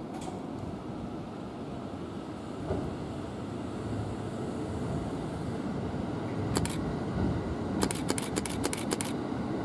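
Limited express Thunderbird electric train pulling out, a low rumble of motors and wheels that grows as the rear cars pass. One sharp click, then a quick run of clicks near the end as the wheels run over the track.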